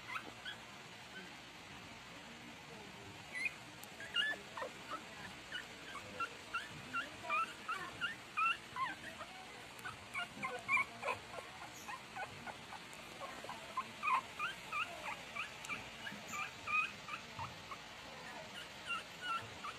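20-day-old Shih Tzu puppies whimpering in a run of short, high squeaks, several a second, starting a few seconds in.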